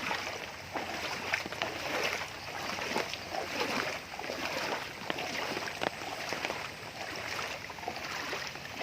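Shallow floodwater sloshing and splashing in irregular small strokes, as of someone wading through ankle-deep water.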